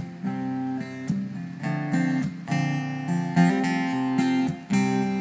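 Acoustic guitar strummed, playing the song's chord intro with sharp strokes and chord changes about every half second.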